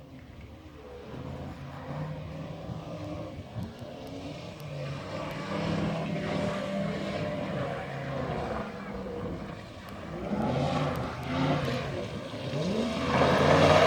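Outboard motor of a Thundercat inflatable racing boat running under way, its pitch rising and falling in the last few seconds as the throttle changes, and loudest near the end.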